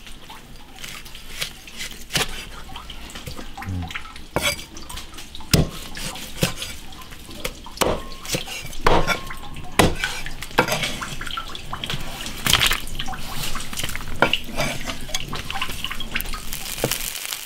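Cleaver cutting beef tendon on a wooden chopping board: a series of irregular knocks as the blade strikes the board.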